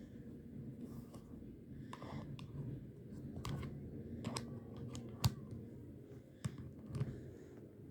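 Scattered light clicks and taps over a low steady hum, with one sharper click about five seconds in.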